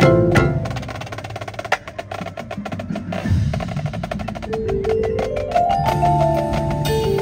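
Indoor percussion ensemble playing: a loud accent at the start, then a passage of fast clicking and tapping strokes, then from about four and a half seconds a line of sustained pitched notes climbing step by step over a low bass.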